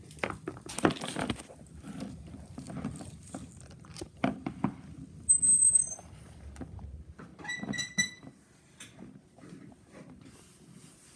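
Plastic dinosaur toys being handled and set down, with scattered knocks and clicks. A short high-pitched tone sounds about halfway through, and a few quick high pips follow a couple of seconds later.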